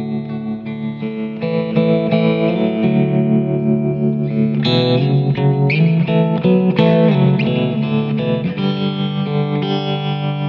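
Background music: held notes, turning busier with many quick notes from about four and a half to eight and a half seconds in.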